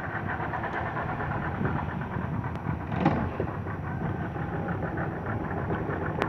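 Outboard motor running steadily, with one brief louder sound about three seconds in.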